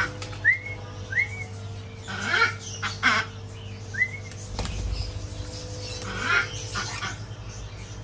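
Parrots calling: three short chirps that rise and dip, and several louder harsh squawks, over a steady low hum.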